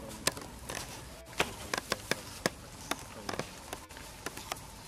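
Dry fallen leaves crackling: a string of about a dozen sharp, irregular clicks.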